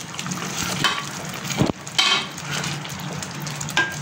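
A wooden spatula stirs vermicelli and fried cashews in a pan of boiling sugar syrup, with a bubbling sizzle and a few knocks and scrapes against the pan, the loudest about one and a half seconds in. A steady low hum runs underneath.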